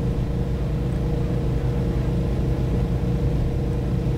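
Car engine idling steadily: a low, even hum with a fast flutter.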